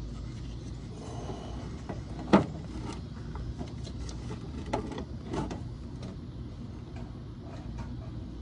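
Plastic clicks and knocks of a headlight assembly being worked into its housing, with one sharp snap about two seconds in, over a low steady hum.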